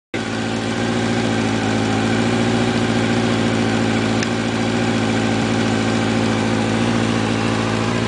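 Four-cylinder motorcycle engine idling steadily at an even, unchanging note.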